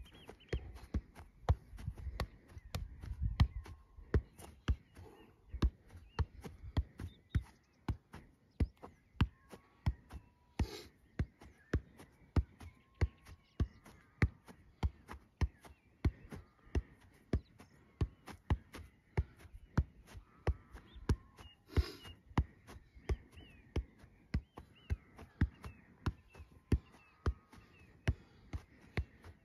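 Football being kept up off the feet: a steady run of short knocks of boot on ball, about two to three touches a second, with two heavier touches about a third of the way in and near three quarters of the way in.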